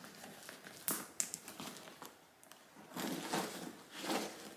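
Handling noise from a leather handbag just unzipped: a few light clicks from its hardware about a second in, then two short rustles near the end as something is drawn out of the bag's opening.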